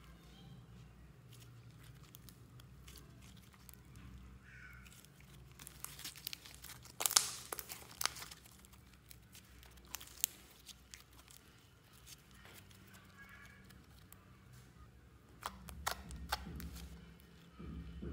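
Glitter slime being squeezed and stretched by hand, making sticky crackling clicks and pops. The pops are thickest a few seconds in and again near the end.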